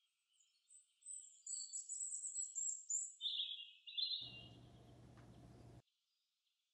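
Faint, high-pitched bird chirping for about three seconds. It is followed by a second and a half of faint hiss with a low hum that starts and cuts off suddenly.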